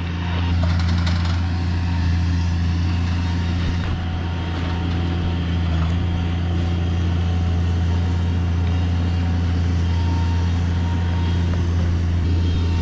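Engine running steadily at constant speed, a deep even hum with no revving.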